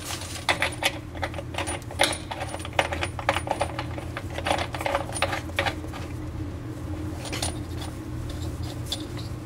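Quick, irregular clicks and small metallic rattles as a hand turns the fixing nut up the brass threaded shank of a mixer faucet under a washbasin. The clicks are thick at first and thin out after about six seconds, over a steady low hum.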